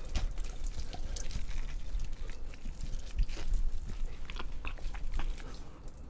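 Gloved hands tearing apart a whole roast chicken close to the microphone: many short, wet, crackly rips and squelches of skin and meat.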